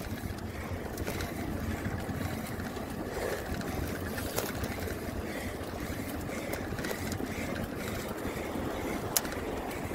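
Wind buffeting the microphone over the steady rolling noise of a bicycle on a bridge deck, with a single sharp tick about nine seconds in.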